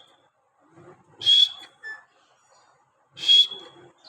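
Pet parrot giving two short, shrill whistling calls about two seconds apart, each rising slightly in pitch.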